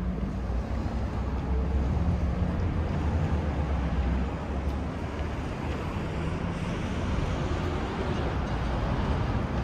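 Steady low rumble of a passing vehicle, with a hiss above it.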